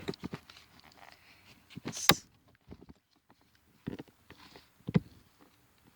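A few scattered clicks and knocks, the loudest about two seconds in, as a car seat's top tether strap and hook are worked free of the anchor.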